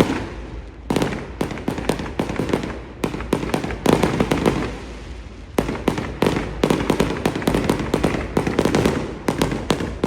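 Fireworks going off in rapid volleys of sharp cracks and crackling bursts, with short pauses between clusters, over a steady low rumble.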